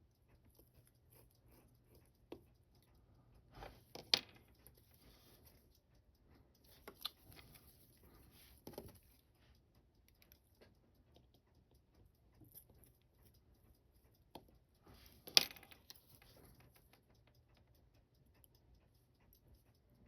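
Small metal tools clicking and tapping on a wristwatch movement and its parts during disassembly, a few scattered sharp clicks with the two loudest at about four seconds and about fifteen seconds.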